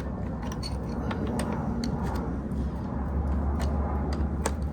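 Light, irregular metal clicks and clinks of a 10 mm wrench working the nut on a car battery's negative terminal clamp, over a steady low rumble.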